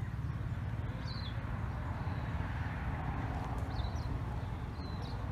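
Steady low outdoor rumble with a few short, high bird chirps: one about a second in and two near the end.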